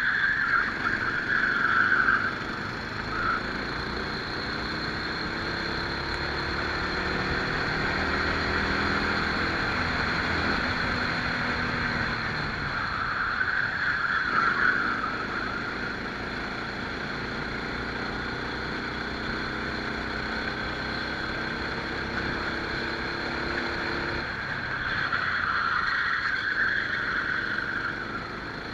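Rental kart engine heard onboard during a racing lap, its pitch climbing steadily as it accelerates and dropping sharply twice as it lifts off into corners.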